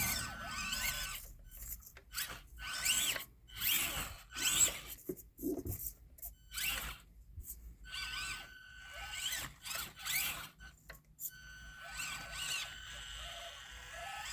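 Axial SCX24 micro RC crawler's small electric motor and drivetrain whining in short bursts as the throttle is worked on and off while it crawls over obstacles. A thin steady high tone sounds between the bursts.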